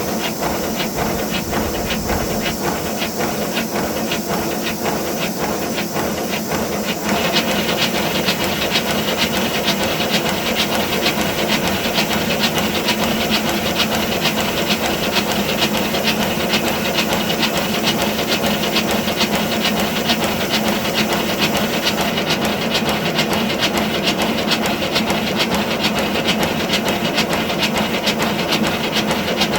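5-inch gauge BR Class 9F live steam model locomotive running on a rolling road: a fast, even run of exhaust beats over steady steam hiss. About seven seconds in it gets louder and brighter.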